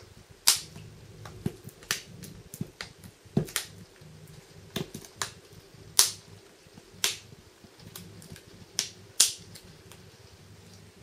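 Samsung Galaxy S4 bezel clips snapping into place one after another as fingers press along the phone's edges: about a dozen sharp clicks at uneven intervals, the loudest about half a second, six and nine seconds in.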